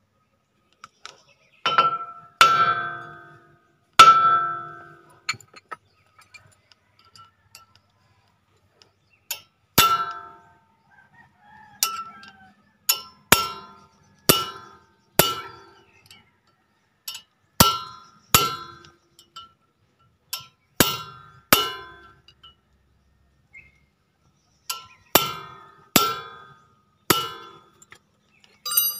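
About twenty hard metal-on-metal strikes on a Ford Ranger's front brake disc rotor, each ringing briefly at the same pitch, coming in clusters with pauses between. The blows are being used to knock the rusted rotor loose from the hub.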